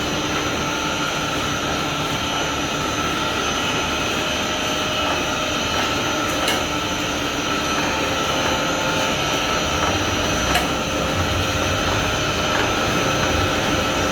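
XZ5-260 stainless-steel noodle-making machine running, with its five rollers and conveyors: a steady mechanical hum with a constant high whine, broken by a couple of sharp clicks.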